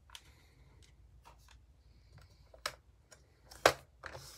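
Light clicks and taps of paper squares being shuffled into a stack on a Creative Memories paper trimmer, with a sharp click near the end as the trimmer's sliding cutter head is handled to cut the stack.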